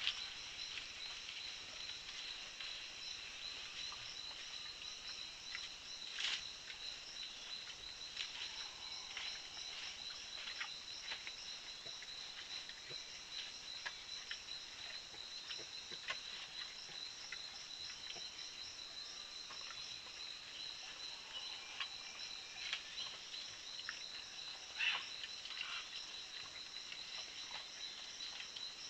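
Tropical forest insect chorus: a steady high-pitched whine with pulsing trills above it. Scattered short clicks and scuffs come through it, the loudest at about six seconds and near twenty-five seconds.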